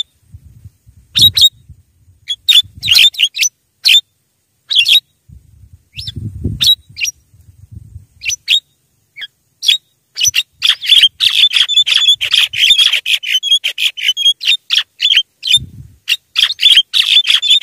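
Javan myna (jalak kebo) calling with sharp, harsh notes, spaced out at first. From about ten seconds in, the calls turn into a fast, unbroken chatter. A few low rumbles come under the calls.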